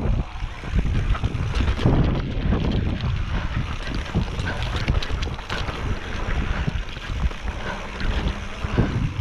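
Wind buffeting the microphone as a mountain bike rides fast down a dirt singletrack, with the tyres rumbling over the ground and frequent short rattles and knocks from the bike over bumps.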